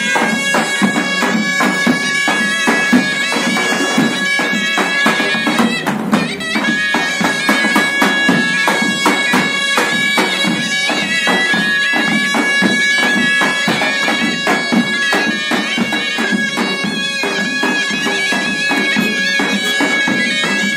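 Zurnas and davul drums playing loud traditional wedding music. Shrill double-reed zurnas play a melody over one steady held drone note, and the double-headed davul bass drums beat a fast, even rhythm. The drone breaks off briefly about six seconds in.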